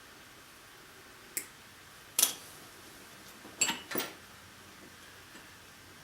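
Four sharp metallic clicks and clinks of small metal parts being handled on a workbench, the second and third loudest.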